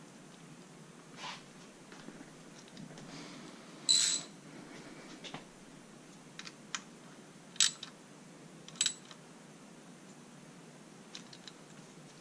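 A few sharp, separate metallic clicks and taps from hands working on the coolant hoses and fittings of a KA24DE engine bay. The loudest comes about four seconds in and rings briefly.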